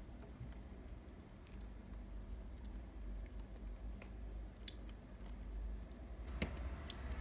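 A plastic spoon scraping and clicking against frozen ice cream in a plastic cup: scattered light clicks, the sharpest near the end, over a low rumble.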